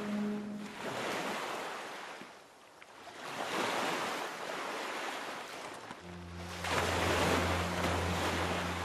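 Sea surf washing onto a beach in three slow swells, each rising and falling like a wave coming in and drawing back. A low music drone comes in about six seconds in.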